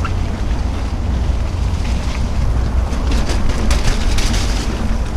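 Wind buffeting the microphone of a camera riding on a mountain bike going downhill on a dirt trail, over a steady low rumble from the bike rolling over the ground. A run of short rattles and rustles comes between about three and four and a half seconds in.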